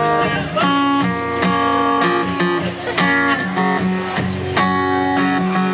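Instrumental intro of a live country song: guitar strumming chords, a fresh chord struck every second or so and left ringing, with no singing yet.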